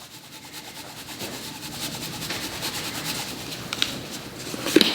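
Seasoning grinder being twisted, grinding cracked pepper and herbs onto a fish fillet: a steady fine rasping, with a couple of light knocks near the end.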